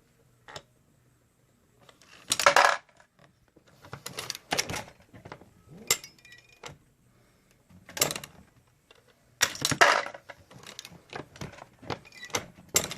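Irregular metallic clicks and clanks from handling a progressive reloading press and its brass cases and steel die parts, several separate sharp knocks with short clatters between. The loudest come a few seconds in and again past the middle.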